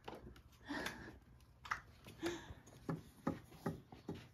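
Soft, irregular knocks and rustles from a domestic cat stepping about and settling on a wooden tray among baskets and containers. A couple of short, soft voice sounds come in between.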